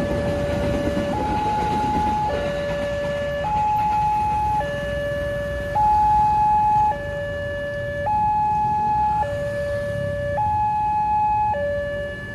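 Railway level-crossing warning siren sounding a two-tone hi-lo signal, switching between a lower and a higher tone roughly every second, over a low rumble of traffic.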